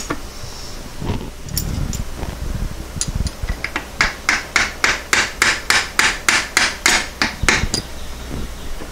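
Quick run of light, evenly spaced taps, about four or five a second for roughly four seconds, starting about three and a half seconds in, while the fifth gear locking plate and shift fork are fitted on a VW 020 transmission. Fainter handling noises come before the taps.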